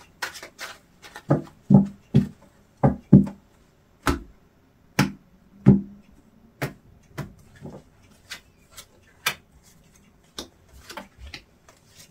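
Tarot cards being dealt and laid down on a table one by one: a series of separate taps and slaps, the loudest in the first half, then lighter clicks of card handling.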